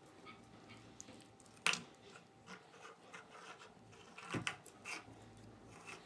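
Faint handling noise: string and ribbon rustling against a cardboard tube and leaves as they are wrapped, with scattered soft taps and a sharper knock about a second and a half in and again past four seconds.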